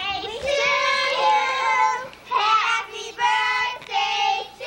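Young children singing in high voices: a run of held notes broken by short pauses.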